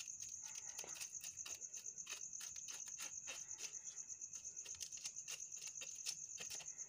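Crickets trilling at night: a steady, high-pitched, finely pulsing chirr.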